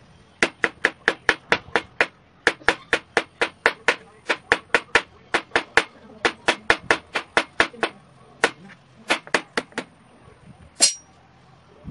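Kitchen knife chopping upo (bottle gourd) on a plastic cutting board: rapid, even knocks, several a second, in runs with short pauses, and one sharper, louder clack near the end.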